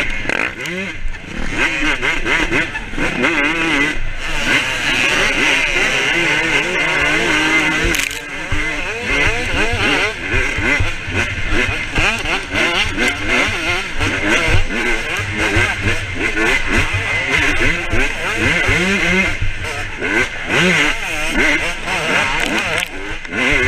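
Motocross dirt bike engine revving hard and falling back again and again as the rider works the throttle through the gears, with a brief throttle chop about eight seconds in.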